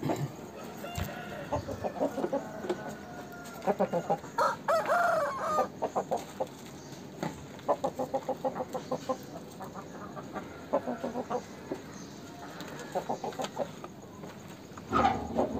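Aseel rooster clucking in quick runs of short notes, several times over, with a short crow about four and a half seconds in.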